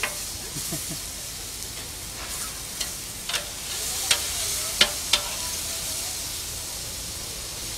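Mushrooms, garlic and peppers sizzling on a hot plancha, with metal spatulas scraping and clicking sharply against the cooking plate several times as the vegetables are stirred.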